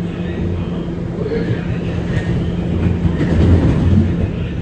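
An R211A subway car running on the rails, heard from on board: a steady low hum and rumble with wheels clacking over rail joints, swelling about three to four seconds in.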